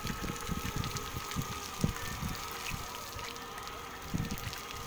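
Solar panel cleaning robot running with a steady high whine, under irregular low buffeting of wind on the microphone.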